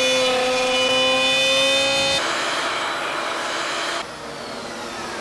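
3-horsepower router running at speed while cutting a half-inch groove down the center of a southern yellow pine board. A steady high whine gives way about two seconds in to a rougher, noisier cutting sound, which drops in level near the end.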